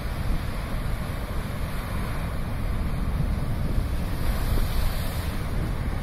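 Strong surf breaking on a rocky shore, a continuous rushing wash of waves, with wind buffeting the microphone. A brighter hiss of foam swells briefly about four seconds in.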